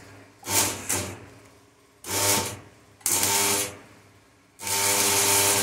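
Stick (arc) welder striking an arc in five short bursts of crackling hiss with a steady buzz under it, the last and longest about a second near the end: tack-welding small steel angle pieces.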